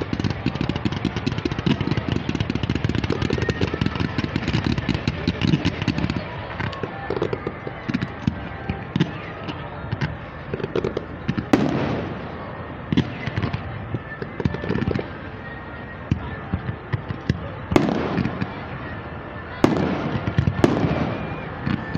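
Fireworks display: a dense barrage of rapid cracks and bangs, which about six seconds in thins out to separate booms with a ringing echo after each, the loudest coming in the second half.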